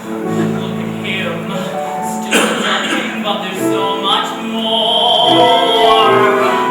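Musical-theatre singing with instrumental accompaniment, voices holding sustained notes. A short sharp hit comes a little over two seconds in.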